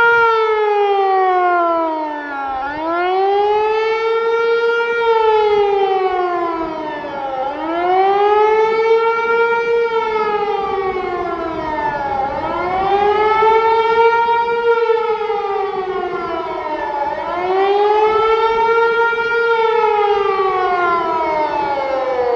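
HLS 273 civil defence siren heard from a few hundred metres away, sounding the rising-and-falling 'Warnung der Bevölkerung' public warning signal. Its many-toned wail climbs and drops in pitch over and over, about one rise-and-fall every five seconds.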